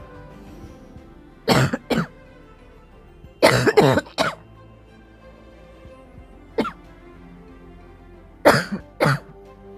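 A person coughing in short fits: two coughs, then a run of three or four, a single cough, and two more near the end, over quiet background music. It is a cough from a dry, irritated throat.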